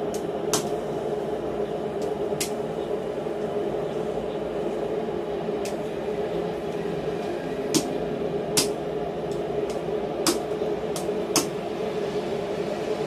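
Hand hammer striking a red-hot steel bar on a steel anvil block, shaping a knot: about ten sharp single blows at irregular intervals, some louder than others. A steady drone runs underneath.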